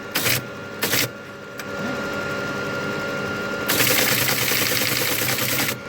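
Elliott 903 computer being started: two short clicks as console switches are operated, over the machine's steady hum with a few held tones. About two-thirds of the way in, a loud rasping noise lasts about two seconds and then stops suddenly.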